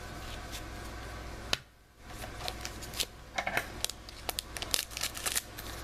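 Trading cards being handled and flipped through by hand: a quick run of small clicks and rustles in the second half, over a steady low hum. The sound drops out briefly about a second and a half in.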